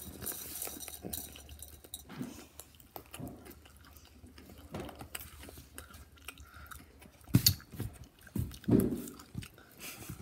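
Close-up crunching and chewing of small hard pretzels, heard as scattered short crackles, with a sharp louder knock about seven seconds in.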